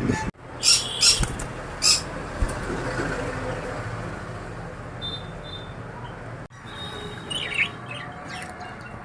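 Pet birds chirping and squawking in short, sharp calls, with three loud ones in the first two seconds, then scattered quieter calls over a steady background noise.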